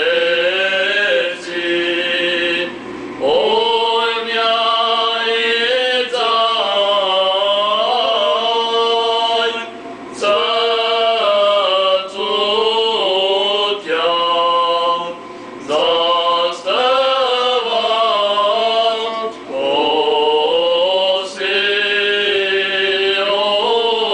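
Armenian Apostolic clergy chanting a liturgical hymn, male voices in melodic phrases a few seconds long broken by short pauses for breath.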